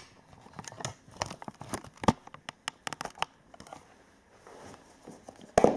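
Light rustling, crinkling and small clicks of hands handling a cardboard model box, then a louder knock near the end as the box lid is lifted off.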